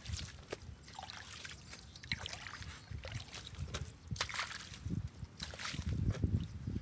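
Muddy water sloshing and trickling at the inlet of a culvert pipe as a long-handled tool is stirred through it, with irregular splashes. The low sloshing grows heavier about five seconds in.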